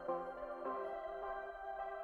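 Soft ambient electronic background music, a run of synth notes with a new note about every half second.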